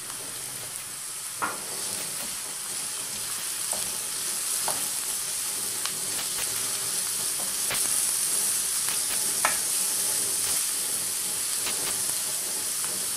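Diced onion and carrot sticks sizzling steadily in olive oil in a frying pan, with a wooden spatula stirring them and knocking on the pan now and then.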